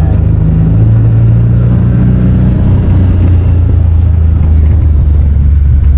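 An engine running steadily with a loud, low hum, its pitch easing down a little about halfway through.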